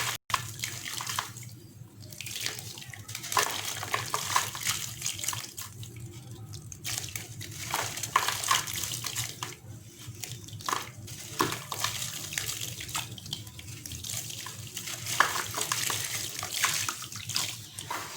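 Dried lumps of gritty sand-cement mix crumbling and breaking apart in water, with a fizzing, crackling hiss that swells and fades in waves.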